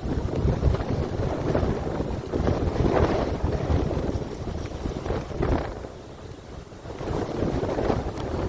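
Strong wind buffeting the microphone in gusts, with waves breaking behind it; the gusts ease for about a second a little past halfway.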